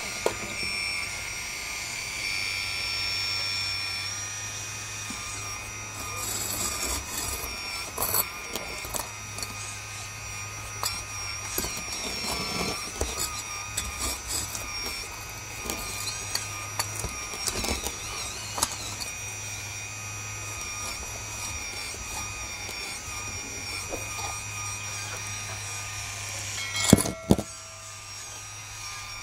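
Hydraulic pump and motors of a 1/14-scale RC excavator modelled on a CAT 336D whining steadily as the boom and bucket work. Scattered scrapes and clicks of the bucket in dirt and stones run through it, with two sharp knocks close together near the end.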